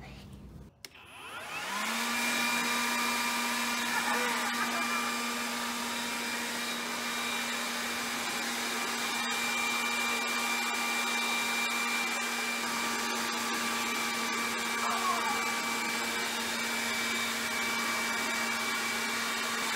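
An electric blower-type motor switching on about a second in, spinning up quickly and then running steadily: a rush of air with a steady whine.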